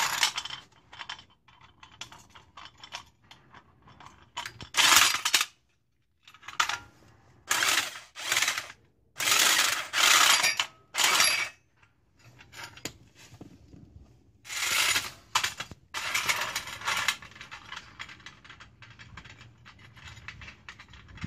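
Electric impact wrench driving the screw of a Toyota scissor jack through an adapter, run in about eight short bursts, with smaller metal clicks and clinks from handling the jack between them.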